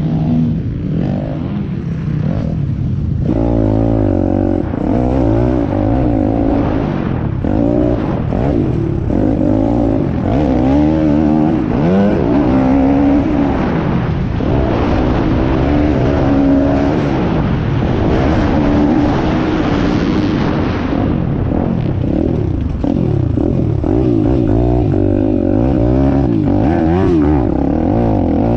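Piranha P190 pit bike's single-cylinder engine revving up and down while it is ridden on a dirt track. It runs low for about the first three seconds, then pulls hard with the revs rising and falling through the gears, with wind noise on the helmet-camera microphone.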